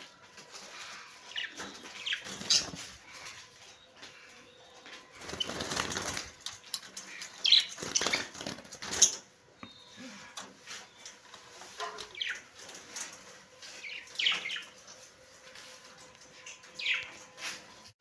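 Budgerigars in an aviary giving scattered short chirps that slide up and down, with wings fluttering. A longer flurry of noise comes around five to seven seconds in.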